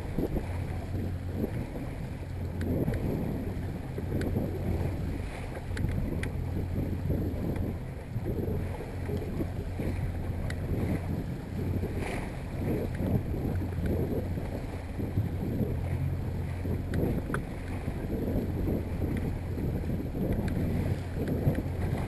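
Yamaha 70 hp outboard motor running steadily at trolling speed, about 1,200 RPM, a low even hum, with wind rumbling on the microphone.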